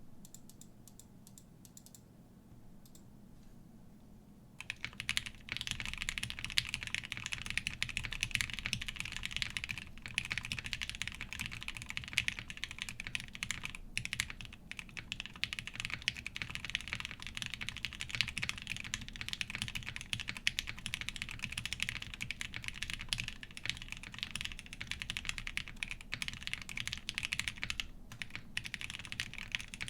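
Typing on a Vega mechanical keyboard with lubed, filmed Gateron Ink linear switches in a polycarbonate plate and GMK ABS keycaps. A few faint key presses come first; after about four and a half seconds it turns into fast, continuous typing, with brief pauses about halfway through and near the end.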